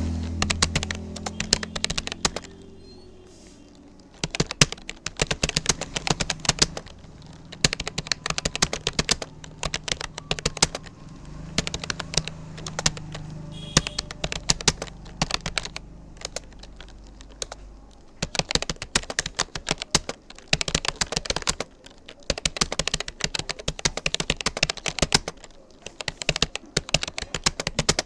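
Fast typing on a Rapoo computer keyboard: rapid runs of key clicks broken by brief pauses of a second or so.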